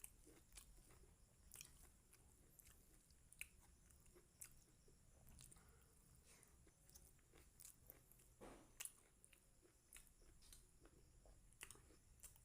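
Faint close-up chewing and eating sounds of a person eating chicken liver and gizzard curry with rice: scattered wet mouth clicks and smacks, with a louder smack about two-thirds of the way through.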